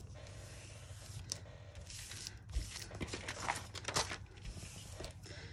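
Paper rustling and crinkling as a large paper envelope is handled and flipped over, with a few louder crackles between about two and a half and four seconds in.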